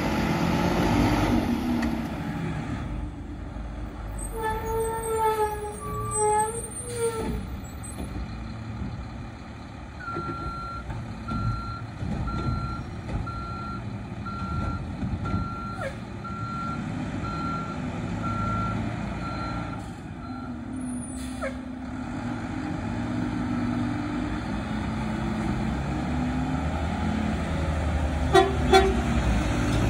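Mack LEU front-load garbage truck's engine running as it pulls away, then its reverse alarm beeping about once a second for some ten seconds while it backs up to turn around. Near the end there is a short air-brake hiss as it comes back.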